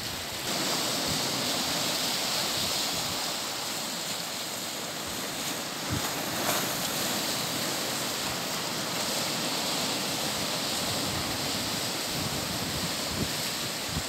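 Sea surf washing in over and around shore rocks: a steady rushing hiss of waves and foam.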